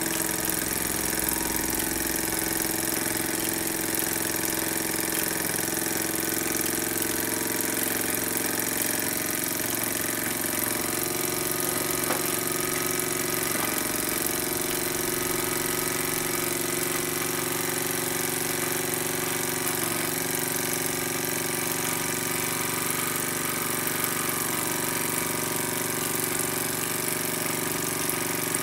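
Small model steam engine with a vertical brass-and-copper boiler running steadily, an even mechanical running note over a steady hiss.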